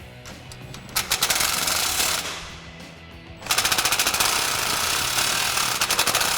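Impact wrench hammering a bolt tight on an exhaust band clamp, in two bursts: a short one about a second in and a longer one starting halfway through.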